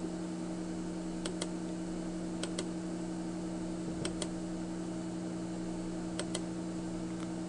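Computer mouse button clicking, mostly as quick double clicks of press and release, every second or two, over a steady low electrical hum.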